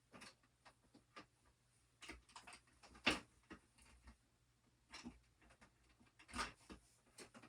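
Scattered knocks, clicks and clatters of things being handled and moved about while a room is emptied, with two louder knocks about three seconds in and about six and a half seconds in.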